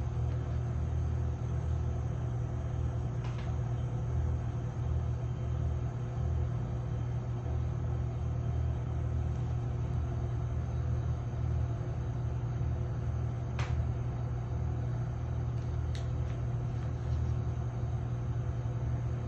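Steady low hum, with a few faint clicks: one about three seconds in and two more later on.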